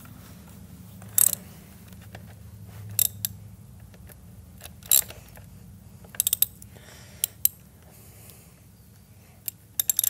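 Irregular sharp metallic clicks and clacks, with a quick run of clicks a little past halfway, from a socket wrench and the primary chain adjuster on a Harley-Davidson Twin Cam 88. The tensioner shoe is being let down one tooth to put slack back into a primary chain that is too tight. A low steady hum runs underneath.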